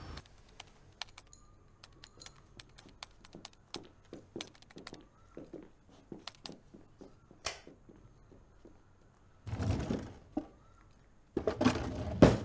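Computer keyboard typing: irregular keystroke clicks for about eight seconds. Near the end come two louder bursts of handling noise, each about a second long.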